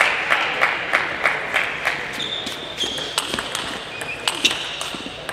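Table tennis ball clicking: quick bounces, about three a second, in the first two seconds, then sharp hits of the celluloid ball on bat and table in a rally. Short high squeaks from shoes on the court floor run through the second half.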